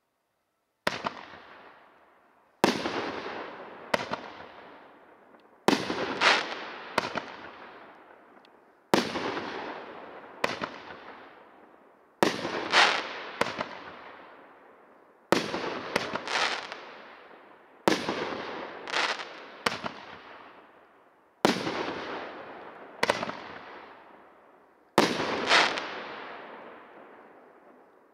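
A 350-gram consumer fireworks cake firing shot after shot, each a sharp bang followed by a long fading tail. The shots come every second or two, some in quick pairs or triplets, starting about a second in and stopping just before the end.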